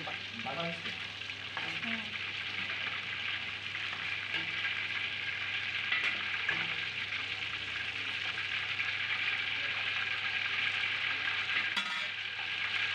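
Food deep-frying in a large pot of hot oil, a steady sizzling hiss, with a metal ladle stirring the oil near the start.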